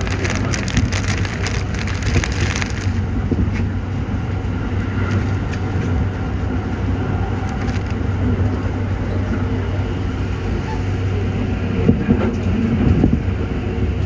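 Toei 5500 series electric train running, heard from inside the car as a steady low rumble. Heavy rain crackles against the car, densely in the first three seconds and in scattered ticks after.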